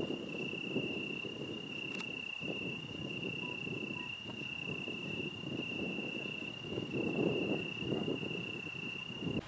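A cricket trilling steadily on one high note, with brief dips, over low background noise that swells and fades.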